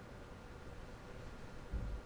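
Quiet small-room tone with a faint steady hum, and a brief low thud near the end.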